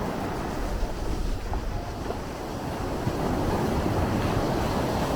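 Sea waves washing in, a steady rush of surf that swells louder about three seconds in.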